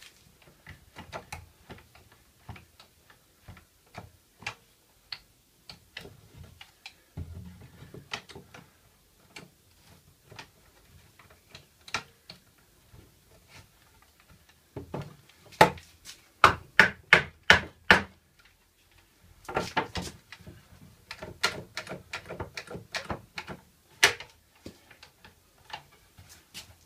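Pallet-wood boards being worked into place by hand: a string of irregular wooden knocks and clicks, with faster runs of louder knocks about midway and again in the second half.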